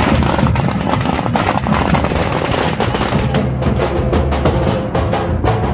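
Large dhol drums beaten in a fast, steady rhythm, together with a string of firecrackers crackling in rapid bursts of bangs that thicken after about three seconds.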